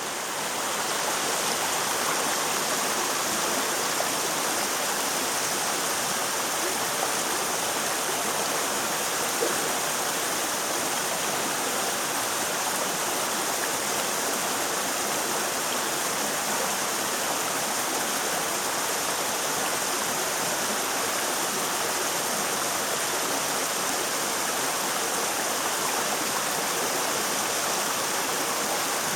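Waterfall: water falling and splashing, a steady, even rush.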